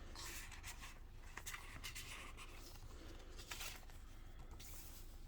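Faint rustling and light scraping of paper pages and card being handled and turned in a handmade journal, a few short soft rustles.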